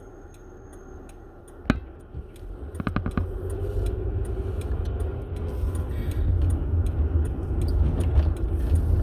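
Inside a car: a sharp click, then a quick run of clicks, then a low rumble of the car under way that builds and stays loud.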